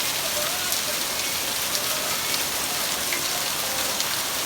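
Heavy rain and hail falling steadily, with a few sharp ticks of hailstones striking hard surfaces.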